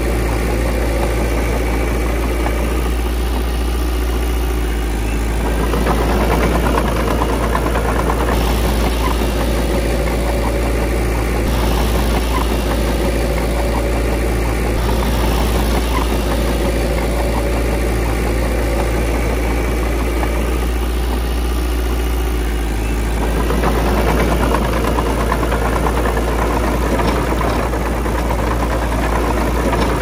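Diesel engine of a Komatsu D20P bulldozer running continuously at work, its note dropping back and picking up again twice as the load changes.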